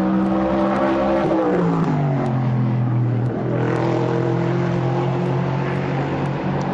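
Aircraft engine droning overhead. Its pitch drops steadily a little over a second in as it passes, then it holds a steady lower drone.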